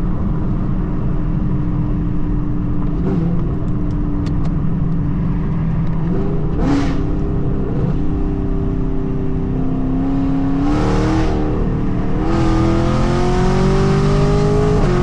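Car engine running while driving, its pitch climbing from about ten seconds in, dropping briefly near eleven seconds as a gear changes, then climbing again under acceleration.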